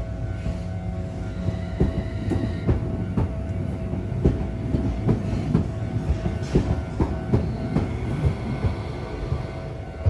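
Tokyu Setagaya Line 300 series two-car tram rumbling through a level crossing, its wheels clacking irregularly over rail joints and the crossing for most of the pass. Behind it the level crossing's electronic warning bell rings steadily.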